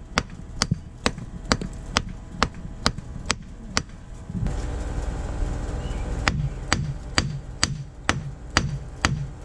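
Steel claw hammer striking a concrete-block wall, about two sharp blows a second, knocking a hole through the block. The blows stop for about two seconds in the middle, where a steady rushing noise takes over, then start again.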